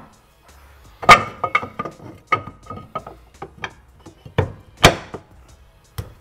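Irregular metal clanks and knocks as a subframe brace is handled and pushed into place under a Porsche 911. A loud clank about a second in leaves a ringing note for about two seconds, and another sharp knock comes near five seconds.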